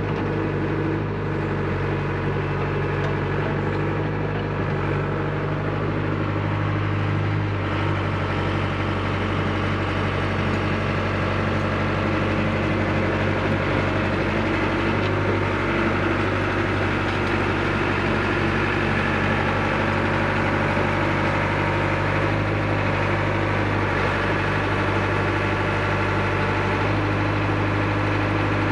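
Excavator's diesel engine running steadily, with a constant low hum, while the machine is worked to lift its tracks.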